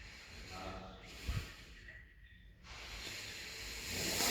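Hiss and breathing close to the microphone, with a soft bump about a second in; the hiss grows louder near the end.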